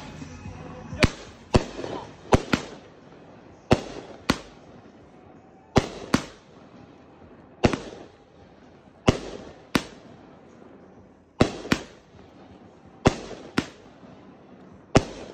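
Brothers Fireworks Knuckle Sandwich 12-shot 200-gram cake firing shot after shot. Each shot is two sharp bangs close together, the launch and then the shell breaking overhead, repeating about every one and a half to two seconds, some nine times.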